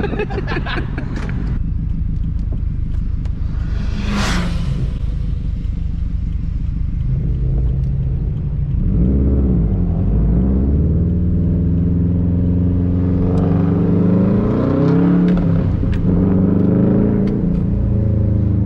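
Subaru WRX STI's turbocharged flat-four boxer engine, fitted with an external wastegate, running with its rumble. A brief hiss comes about four seconds in. From about seven seconds in, the revs climb and drop several times under acceleration.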